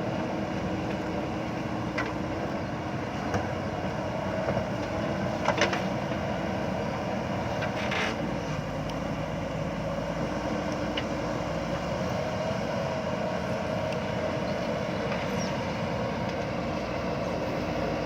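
JCB backhoe loader's diesel engine running steadily, with a few sharp knocks.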